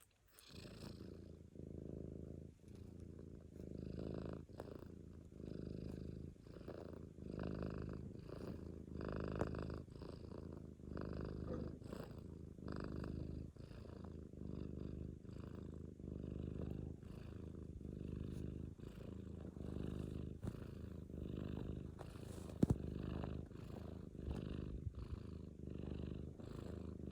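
Domestic cat purring close up while it kneads, the low rumble swelling and fading with each breath in and out. One brief click sounds late on.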